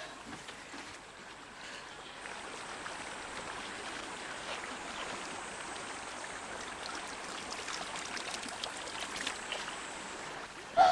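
Running water trickling steadily, starting about two seconds in, as cupped hands scoop some of it up.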